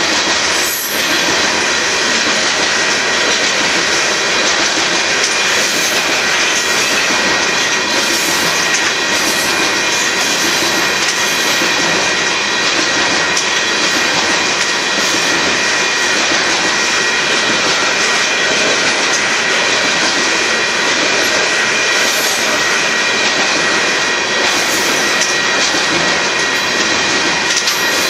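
A Union Pacific gravel train's freight cars rolling steadily past, a loud continuous rumble and rattle of wheels on rail, with steady high-pitched tones ringing over it.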